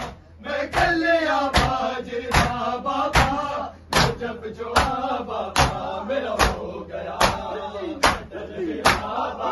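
Group matam: many bare-chested men slapping their chests in unison, one sharp slap a little more than once a second. Men's voices chant a nauha between the slaps.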